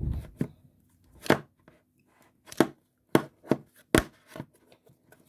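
Blue butter slime being squeezed and poked by hand in its plastic tub, giving a series of sharp, sticky pops and clicks, about eight of them at irregular intervals.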